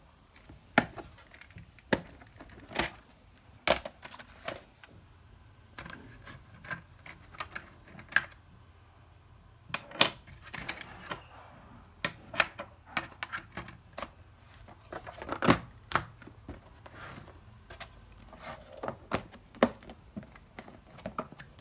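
Clear plastic compartment organizer boxes being handled: irregular plastic clicks, taps and knocks as the boxes are moved and set down and their lids and contents shift.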